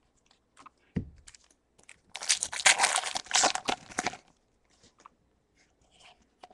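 Foil Pokémon booster-pack wrapper being torn open, a dense crinkling crackle lasting about two seconds, preceded by a soft thump. Light clicks of cards being handled follow near the end.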